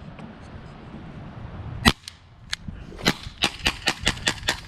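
CO2-powered .177 BB revolver firing: one sharp, loud shot about two seconds in, then a fainter crack, then a rapid string of about nine quieter cracks near the end, fired in quick succession. The string sounded weird.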